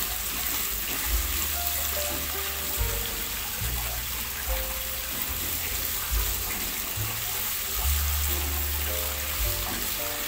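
Sliced shallots, onion and green chilies sizzling steadily in hot oil in a nonstick wok as a spatula turns them, being sautéed until wilted and fragrant. Background music with a bass line and a simple melody plays over it.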